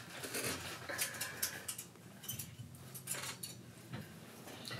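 Forks scraping and clicking against takeout food containers as the food is eaten: faint, scattered small clicks and scrapes.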